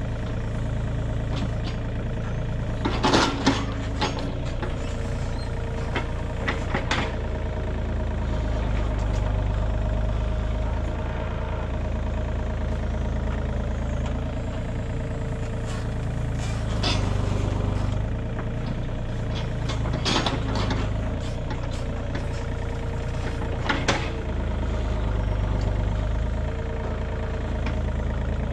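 Engine of a digging machine running steadily, with a steady whine over it and scattered sharp clunks and rattles while dirt is scooped.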